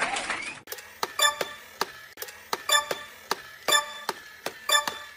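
A string of short, ringing plucked notes at uneven spacing, about a dozen in all, in the manner of a comedic tiptoe sound effect. It starts about half a second in, when a crowd-like noise cuts off suddenly.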